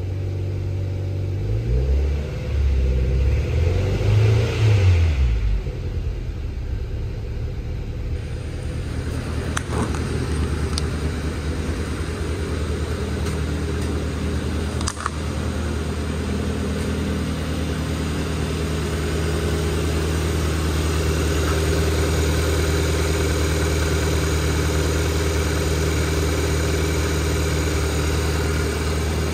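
2012 Kia Rio's 1.6-litre GDI four-cylinder engine running: revved up and down a few times in the first five seconds or so, then idling steadily.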